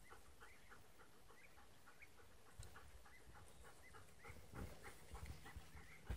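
Greyhound panting quickly, about four breaths a second, faint and even.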